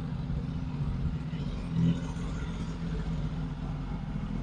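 Suzuki GSX-S1000's inline-four engine idling steadily in neutral, swelling slightly for a moment about two seconds in.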